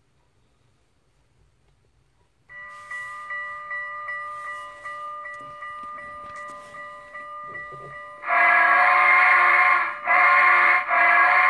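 Steam-locomotive sound effects from the DCC sound decoder in a Budweiser Holiday Express model locomotive, played through its small speaker. A couple of seconds in, a bell starts ringing about twice a second; then a loud chime steam whistle blows a long blast followed by two shorter ones.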